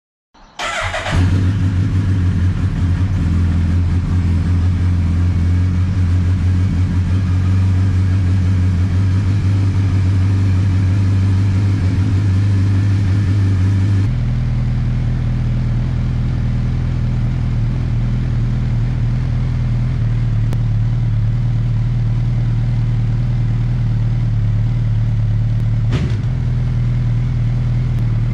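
Suzuki Hayabusa's 1340 cc inline-four starting about half a second in and then idling steadily, being run up to operating temperature after a coolant refill so trapped air bleeds out of the cooling system. The engine note changes abruptly about halfway through.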